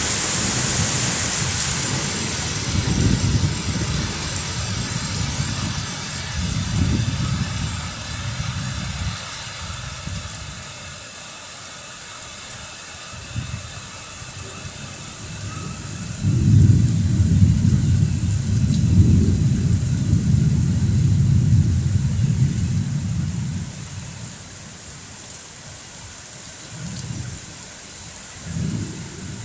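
Heavy thunderstorm rain pouring down, its hiss easing after the first ten seconds or so. Under it are repeated low rumbles, the loudest and longest from about 16 to 23 seconds in.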